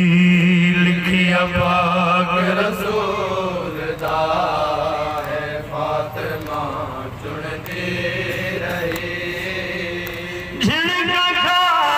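A man chanting a mournful devotional elegy unaccompanied into a microphone, his voice amplified through a PA, in long wavering melodic phrases. About two-thirds of the way through, a louder, higher phrase begins.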